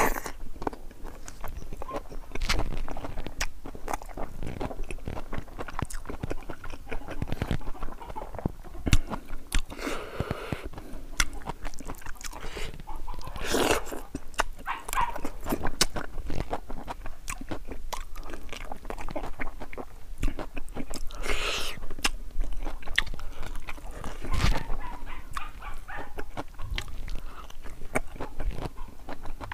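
Close-miked chewing and eating by hand: a mouthful of rice, boiled pig's feet and passion fruit leaves chewed with many short wet mouth clicks and smacks, and a few longer swells of noise.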